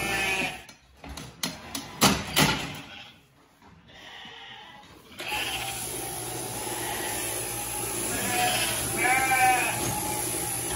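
Sheep bleating: one call right at the start and one clear, wavering bleat about nine seconds in, over a steady low background. A few sharp knocks come about one to two seconds in, followed by a short quiet stretch.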